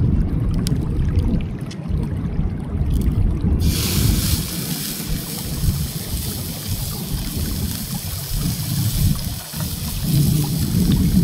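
Raw beef steak laid into a hot cast-iron skillet starts sizzling about three and a half seconds in: a sudden, steady frying hiss over a low rumble.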